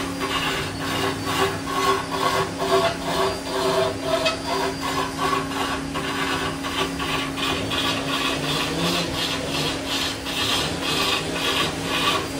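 A large wood lathe running with a steady motor hum while a cloth-held pad is pressed by hand against the spinning wooden workpiece, giving a pulsing, rasping rub as the wood is sanded smooth.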